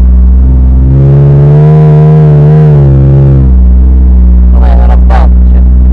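4x4 engine revving while pulling through dune sand: the engine note climbs about a second in, holds, and drops back after about three seconds, over a steady low drone.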